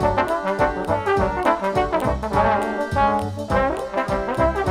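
Background music: a melody over a steady beat.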